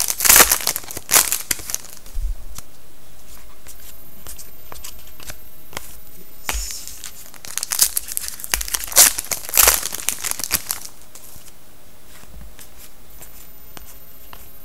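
Foil wrapper of a Panini Contenders hockey card pack being crinkled and torn open by hand. The crackling comes in two spells, at the start and again from about six and a half to ten and a half seconds in, with quieter rustling between.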